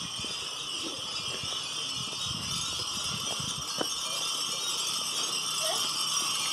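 Many glass furin wind chimes ringing together, a continuous tinkling wash of overlapping high tones, with a low irregular rumble underneath.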